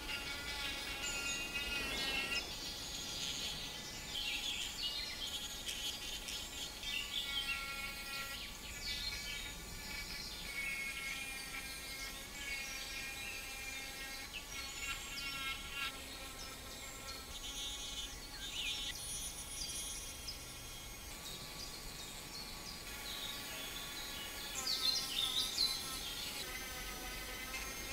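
Dremel rotary tool running at high speed with carving and sanding bits grinding into a wooden block. Its high whine wavers and dips as the bit bites into the wood, over a gritty hiss, and grows loudest a little before the end.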